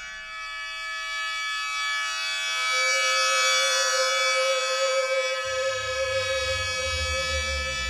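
Composed instrumental music: a bright sustained drone of many held tones, joined by a strong held mid-pitched note about two and a half seconds in and a low pulsing bass about five and a half seconds in.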